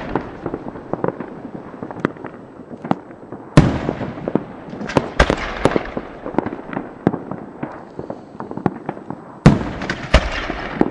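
Fireworks going off: loud bangs about three and a half seconds in, again around five seconds and once more near the end, with continual smaller pops and crackling between them.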